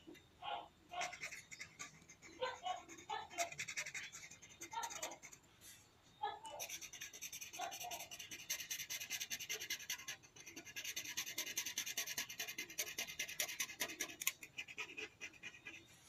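Felt-tip marker scribbling rapidly back and forth on paper while colouring in, first as a few scattered short scratches, then in two long spells of fast, even strokes with a brief pause between them.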